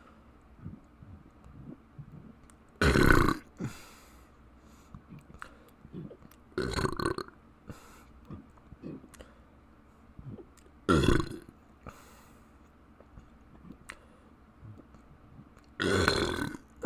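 A person burping four times, a few seconds apart, each burp lasting about half a second to a second. The last one comes near the end. Faint mouth clicks fall between the burps.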